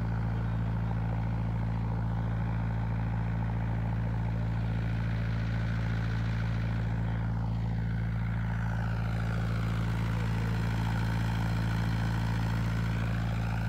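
Heavy diesel engine idling steadily, a constant low drone that does not change in pitch or level.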